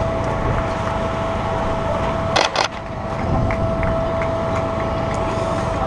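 Steady outdoor background noise with a faint steady hum. About two and a half seconds in, a camera shutter fires twice in quick succession, loud and close.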